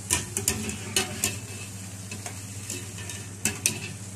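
A utensil clinking against a speckled enamel pot while freshly fried zalabia dough balls are stirred into sugar syrup, about half a dozen sharp separate clinks. A faint sizzle runs underneath.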